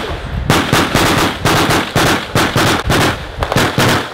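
Rapid gunfire: loud sharp shots following one another several times a second in uneven clusters, with short gaps between them.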